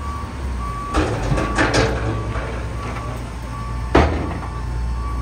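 Steady low hum of running industrial machinery, with a vehicle's reversing beeper sounding at an even pace and a few sharp knocks, the loudest about four seconds in.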